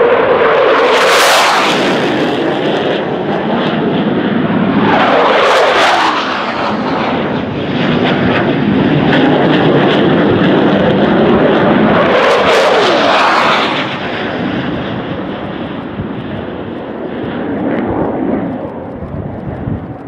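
A flight of F-15C Eagle fighter jets making low passes, their twin F100 turbofan engines loud throughout. Three jets go by with a swell and a falling pitch about a second in, around six seconds and around thirteen seconds, and a fainter fourth pass comes near eighteen seconds.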